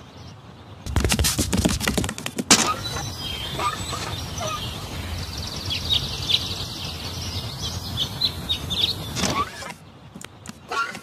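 A loud burst of rapid rattling clicks about a second in, then a steady outdoor rush with birds chirping, which cuts off near the end.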